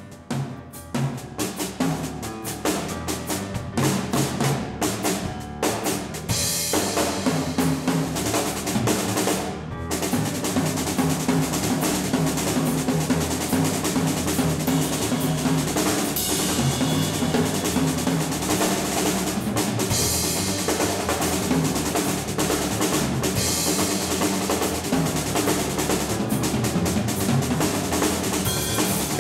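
Jazz drum kit played live (a Larsen kit): separate sharp drum strokes for the first few seconds, then about six seconds in a busier rolling pattern with cymbal wash, with an upright bass sounding underneath.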